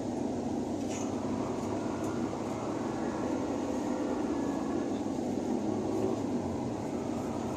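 Steady running noise of a moving vehicle on the road: an even low rumble of engine and road noise.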